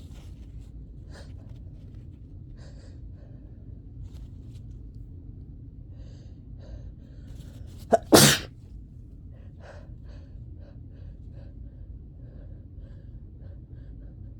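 A person with a summer cold sneezing once, a single loud burst about halfway through with a brief lead-in just before it.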